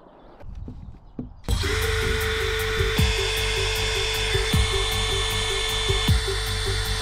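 Background music with a steady beat starting suddenly about a second and a half in, over a cordless drill boring screw holes through the sheet-metal roof of a camper van. A few faint knocks come before the music starts.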